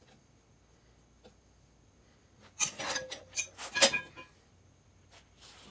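Metal clinks and knocks from tools and the wheel being handled during a valve stem change on a tire machine: quiet at first, then a quick cluster of sharp clinks about two and a half seconds in, lasting about a second and a half.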